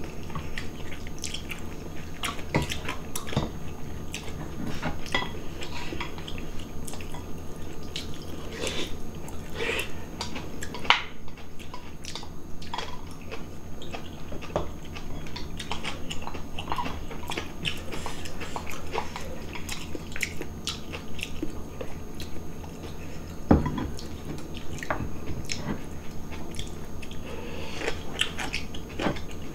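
Close-up eating sounds of nurungji, a soupy scorched-rice porridge, with side dishes: wet chewing and slurping, with frequent small clicks of chopsticks and spoons against bowls. Two louder knocks come about a third of the way in and again near the three-quarter mark.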